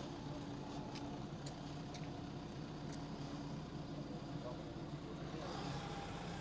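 Excavator's diesel engine running steadily, with a few light clicks in the first half.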